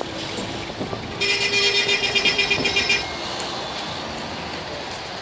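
Steady road traffic noise. From about a second in, a shrill, fluttering, horn-like tone sounds for about two seconds.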